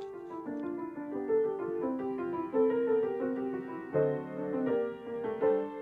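A piano being played by hand: a steady stream of notes over held chords, with a few notes struck harder.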